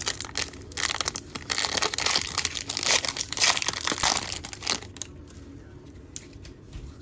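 Wrapper of a 2022 Topps Series 2 baseball card fat pack crinkling and tearing as it is ripped open. There are about five seconds of dense rustling, then it dies down.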